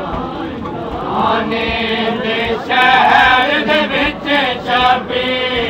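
Men's voices chanting a noha, a Shia mourning lament, in unison over crowd noise. The chant comes in strongly about a second and a half in.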